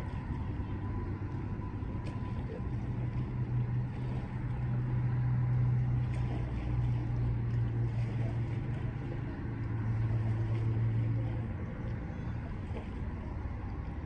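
A low engine drone swells from about three seconds in and fades away near the end, over a steady background of wind and water noise.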